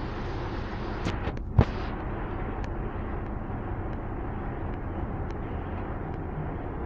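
Interior of an Ikarus 280 articulated diesel bus: the steady rumble of engine and running gear. A rushing hiss for the first two seconds carries a few sharp clicks and one loud knock about a second and a half in. After that the rumble goes on with light rattles.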